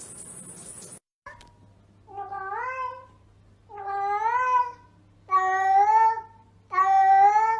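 A cat meowing four times, long drawn-out meows that rise in pitch and then hold, about one every one and a half seconds and getting louder. A steady hiss at the start stops abruptly about a second in.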